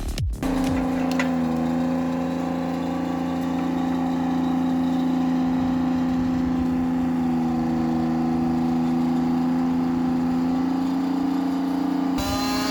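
A small engine running steadily at a constant speed, its tone changing and rising slightly near the end.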